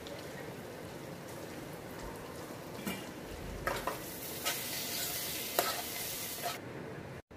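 Food frying in hot fat: a steady sizzle with sharp crackles and pops. It grows louder for about three seconds in the middle, then cuts off abruptly just before the end.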